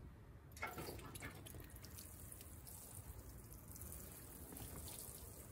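Water sprinkling from a metal watering can's rose onto a tray of soil-filled seed cells: a faint, steady shower of water that starts just after the beginning.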